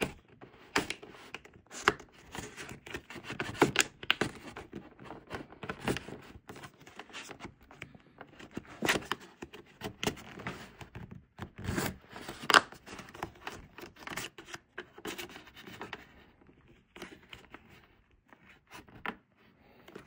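A thin pry card scraping and clicking in the seam between an LG UltraFine 5K monitor's back cover and its screen, working the back cover loose. Irregular sharp clicks and scrapes, loudest about nine and twelve seconds in, growing quieter near the end.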